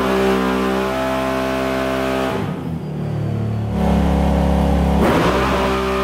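Can-Am Renegade 1000's V-twin engine running hard at a steady speed on a chassis dyno. Its note changes and deepens in the middle for a couple of seconds, then returns to the first steady note about five seconds in.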